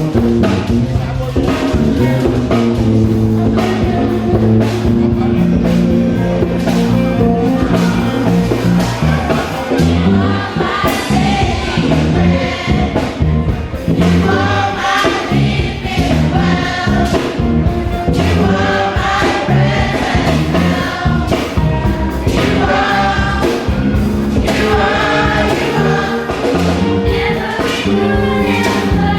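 Gospel music with a choir singing over bass, guitar and a drum kit keeping a steady beat, the voices coming in strongest from about eleven seconds in.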